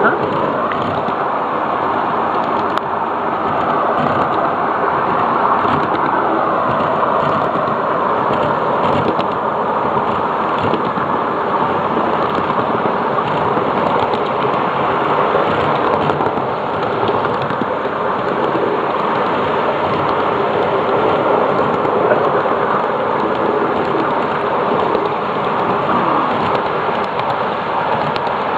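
A 7.5-inch gauge ride-on miniature train running along its track, heard from on board: a steady, even rumble and hiss of the ride that does not let up.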